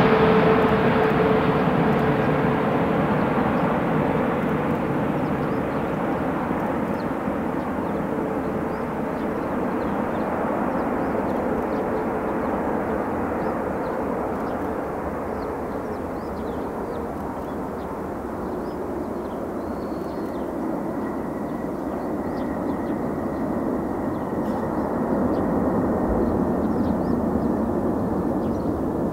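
Boeing 777-300ER's GE90 turbofan engines on a landing approach: a jet roar with a whining tone that sinks slightly in pitch and fades as the airliner passes and touches down, then swells again in the second half during the landing roll.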